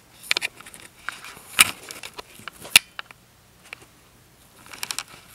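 Rustling and handling noise with scattered sharp clicks; the loudest clicks come about one and a half and nearly three seconds in, with another cluster near the end.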